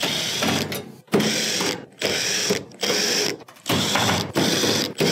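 Cordless drill/driver backing Phillips screws out of a range's sheet-metal rear panel. It runs in a series of short bursts, each under a second, with brief gaps between them.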